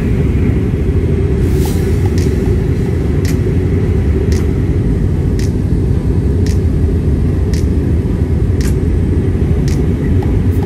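Jet airliner in flight, heard from inside the cabin: a steady low rumble of engines and rushing air. Faint light ticks recur about once a second.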